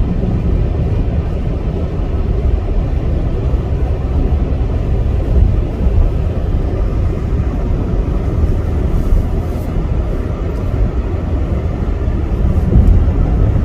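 Steady low rumble of road and engine noise inside a car cabin while driving on a snow-covered highway.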